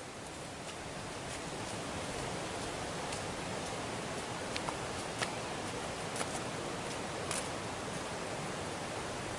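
Steady rush of falling water, growing a little louder over the first couple of seconds, with a few faint clicks and ticks over it.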